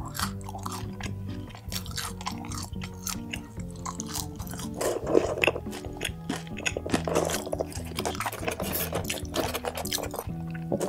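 A person chewing food close to the microphone, with many short wet mouth clicks and a few louder crunchy bites about halfway through, over background music.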